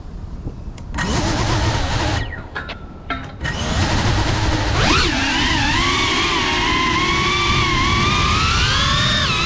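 Cinelog 35 cinewhoop drone's motors and propellers spinning up: a rough whir from about a second in, then from about five seconds a steady high whine that wavers and slowly climbs in pitch with the throttle as the drone lifts off. The pitch drops near the end.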